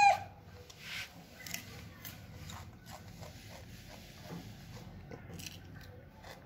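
A rhesus macaque chewing cucumber: faint, scattered crunches and clicks. At the very start a loud, high squeal cuts off.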